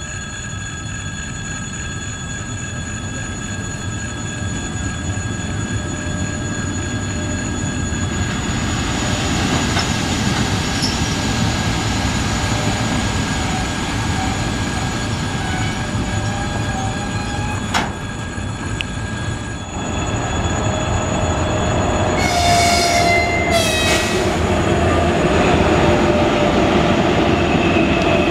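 Russian electric locomotives passing at line speed, rumbling and whining with steady electrical tones: first an EP1 with a short work train, then a double-section 2ES5K freight locomotive that comes closer and louder about two thirds of the way in. Two short pitched blasts with a falling end sound as the 2ES5K arrives.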